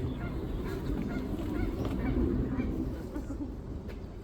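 Geese honking, a run of short repeated calls.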